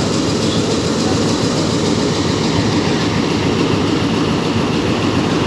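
Bangladesh Railway diesel locomotive and coaches passing close by: a steady, loud diesel engine rumble mixed with wheel-on-rail rolling noise.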